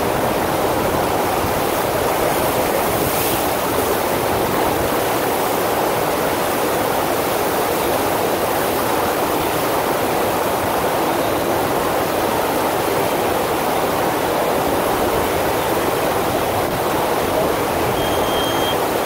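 FlowRider sheet-wave machine: a steady rush of pumped water sheeting over the ride surface. A brief faint high tone sounds near the end.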